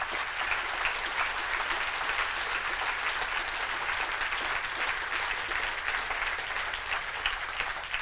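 Audience applauding, a steady round of clapping that tails off near the end.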